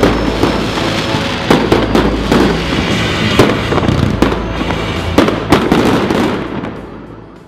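Fireworks bursting overhead, with many irregular sharp bangs and crackles, over background music. The sound fades out near the end.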